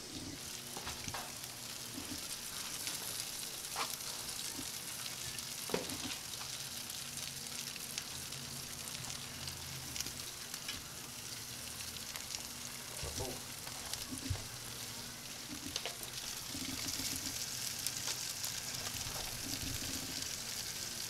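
Chicken breasts and bacon sizzling on a gas grill: a steady hiss with scattered small pops.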